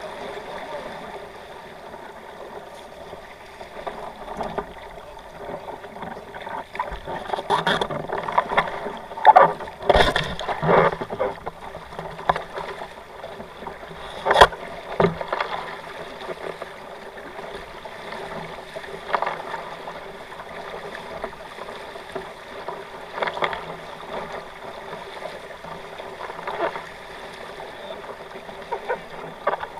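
Water splashing and sloshing against the hulls of a sailing kayak catamaran under way in choppy sea, with a run of louder splashes about a third of the way in and one sharp knock soon after.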